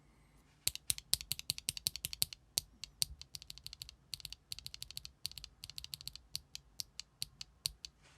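Keys typed quickly in runs on a GEON F1-8X mechanical keyboard, with clacks coming in rapid succession and short pauses between runs. The keyboard has RAW switches, an aluminium plate, an O-ring mount, no foam and DMK Vintage ABS double-shot keycaps.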